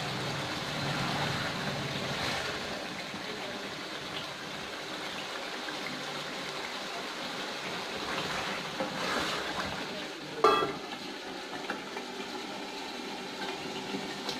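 Masala curry sizzling and simmering in an aluminium karahi as it cooks down until the oil separates, with stirring in the pot. About ten seconds in, a single sharp metallic clang with a short ring as the aluminium lid is set on the pot.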